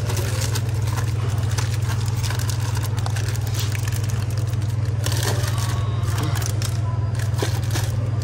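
A steady low hum throughout, with scattered clicks, scrapes and rustles of packets being handled.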